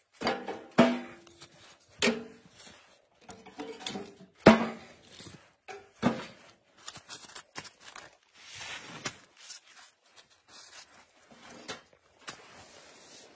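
Split firewood being handled and loaded into a small metal wood stove: irregular knocks and clatter of wood against wood and the stove's metal, the loudest a few sharp knocks with a brief ring after them.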